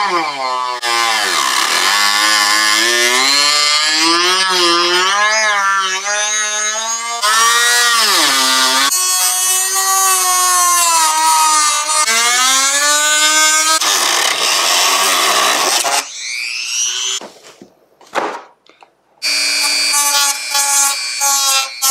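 Rotary tool (WEN) with a plastic cut-off wheel cutting through a hard plastic armrest lid. The motor's whine rises and falls in pitch as the wheel bites into the plastic and frees up again. It drops out briefly near the end, then starts again.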